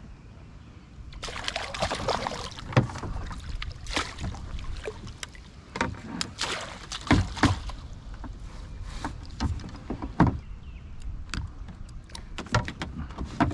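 A hooked largemouth bass splashing and thrashing at the water's surface beside a kayak and in a landing net, starting about a second in, with repeated sharp knocks and clatters mixed in.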